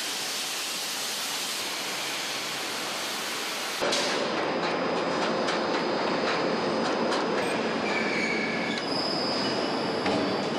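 Steel-mill billet casting and handling machinery. First a steady hiss at the glowing billet strands of a continuous caster. Then, about four seconds in, it changes to metal clanking and clicking with high squealing and whining tones.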